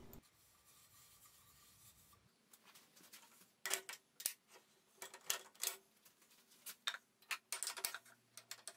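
After a few seconds of near silence, scattered brief rubbing and scraping handling sounds: a hand on a metal jumbo-jaws chuck plate with rubber grippers and on a turned mahogany bowl held by it.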